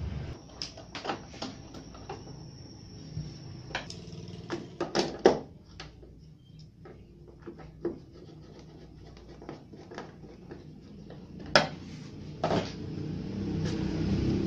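Plastic back cover of a CRT television and a screwdriver being handled while the cover is screwed on: scattered clicks and knocks, with a cluster of sharper knocks about five seconds in and another single knock near the end.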